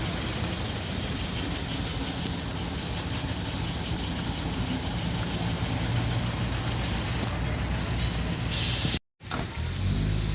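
An engine running steadily with a low hum, with a short burst of hiss near the end.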